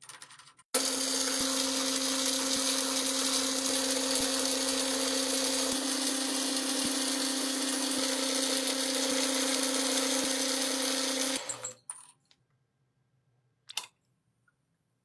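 Electric motor of a restored saw blade sharpening machine switched on, running steadily with a hum and hiss for about ten seconds, then switched off. A single click follows near the end.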